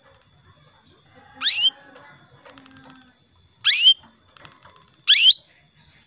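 Female canary giving three short, rising calls, each sweeping upward in pitch, spaced a second or two apart: the contact call a hen canary uses to call a male.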